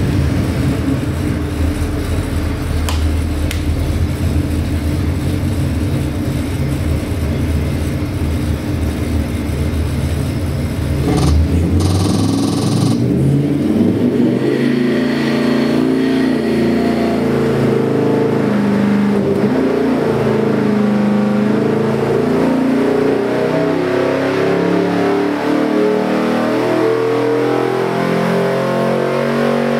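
Ford 351 Windsor (5.8 L) small-block V8 running on an engine dynamometer: it holds a steady speed, then, after a short hiss about eleven seconds in, is pulled under load in an rpm sweep, its pitch climbing from about 2,400 to over 5,000 rpm before dropping back near the end.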